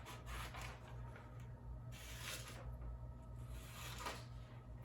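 Scissors cutting paper: a few faint snips and paper rustles over a steady low hum.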